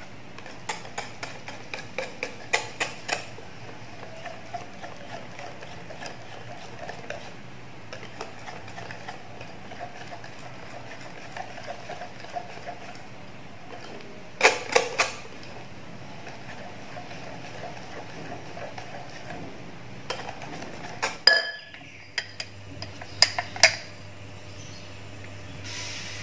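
Metal wire whisk beating thin batter in a glass bowl: a steady swishing with sharp clinks as the wires strike the glass, in clusters near the start and in the middle. A loud clink about four-fifths of the way through, then more clinks.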